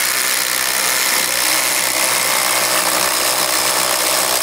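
Two cordless impact drivers, a DeWalt 20V MAX and a Makita 40V XGT, running together at full speed and boring 1-inch self-feeding spade bits into a pine 2x4: a loud, steady mechanical buzz of the tools with the bits chewing through the wood.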